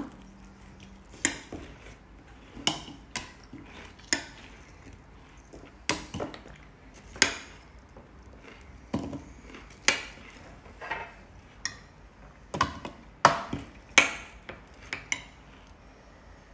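Metal spoon clinking and scraping on a ceramic plate and a clear footed dessert bowl as apple pieces are scooped up and dropped in: sharp, irregular clinks, about one or two a second.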